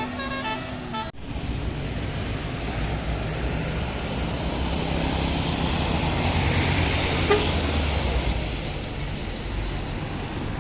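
A bus's multi-note telolet (basuri) horn playing a short tune that breaks off sharply about a second in. Then a bus's engine and road noise build to a peak in the middle and fade as it passes.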